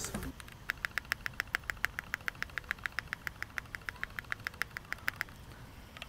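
Rapid, even typing on a gasket-mounted Keychron Q1 aluminium mechanical keyboard, about eight keystrokes a second, stopping about a second before the end. Despite a tape mod and case foam, the board still sounds hollow.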